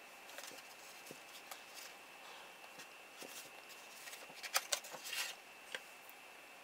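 Faint handling of a small cardboard box: light rubbing as it is turned in the hands, then a few soft clicks and taps about two-thirds of the way in as the box is opened and the wire spool taken out.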